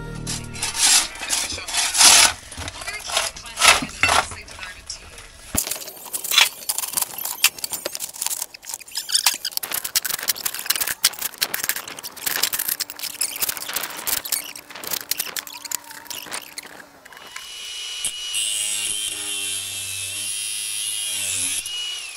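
Hammer blows on a bolster chisel, knocking bricks and mortar out of a brick wall, with several sharp loud strikes. Then a shovel scrapes and clatters through broken brick rubble on concrete. Near the end there is a steady high hiss with low tones changing in steps.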